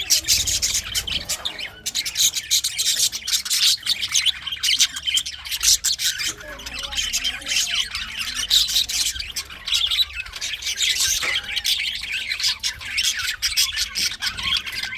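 Green male budgerigars chirping and chattering without pause: a dense run of quick, high squawks and warbles.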